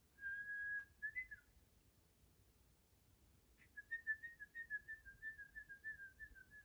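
A thin high whistle: one short steady note with a brief warble after it, then, after a pause of about two seconds, a rapid wavering run of pulsed whistling notes that slowly sinks in pitch.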